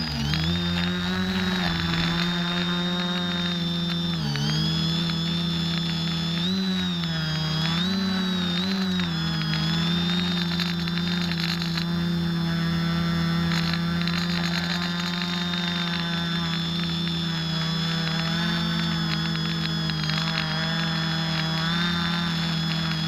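X550AIOP quadcopter's electric motors and propellers whining, close to the onboard camera. The pitch dips and rises again a few times in the first nine seconds as the throttle changes, then holds steady.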